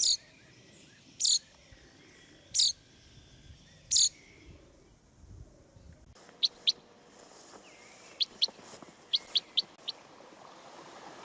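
Small birds chirping: single short high chirps about every second and a half, then, after an abrupt change in the background about six seconds in, shorter chirps in quick pairs and small bunches.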